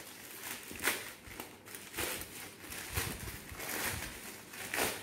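Plastic courier mailer bag rustling and crinkling as it is pulled and torn open by hand, in about five short bursts, the loudest about a second in.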